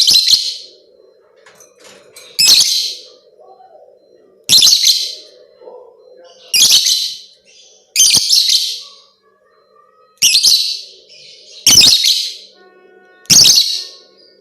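Lovebird giving loud, high-pitched call bursts, eight of them, each about half a second long and spaced one and a half to two seconds apart.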